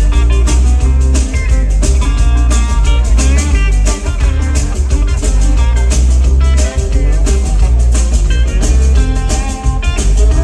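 Live rock band playing loudly: a hollow-body electric guitar plays a lead line over a driving drum kit and a heavy bass line, with no vocals.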